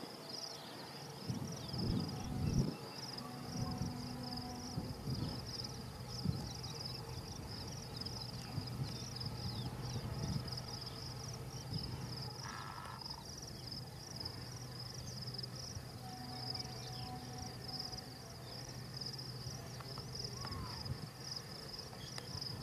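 Crickets chirping in a steady, fast pulsing trill. A few low gusts of wind on the microphone come about two seconds in.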